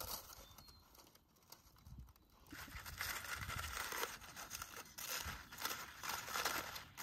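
Aluminium foil crinkling and rustling as hands unwrap foil-baked potatoes, growing louder about two and a half seconds in.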